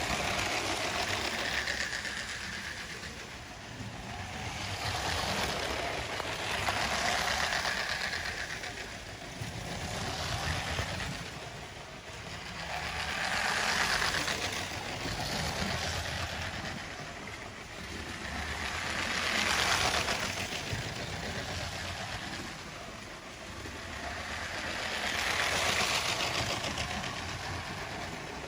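LEGO train running on its plastic track, the motor and wheel noise swelling and fading about every six seconds as it comes round the loop and passes.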